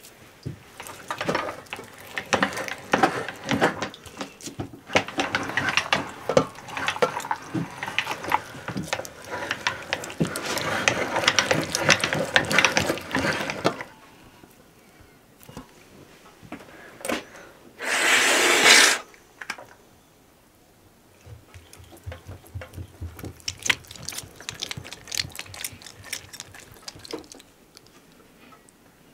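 Hand-cranked meat grinder clattering and clicking as it turns, with a brief rush of water a little past the middle and lighter clicking after it.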